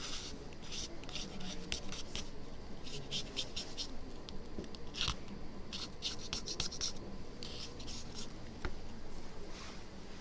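A blade scraping softened old glue off an iPhone 6 Plus screen in quick short strokes, one after another, with a brief pause now and then.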